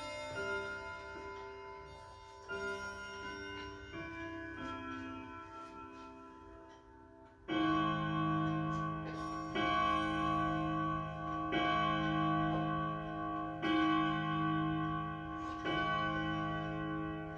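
Emperor 120 Series grandmother clock's chime rods finishing a chime melody, with a few ringing notes dying away. About seven and a half seconds in, the hour strike begins: louder, deeper bell-like strikes about two seconds apart, five in this stretch.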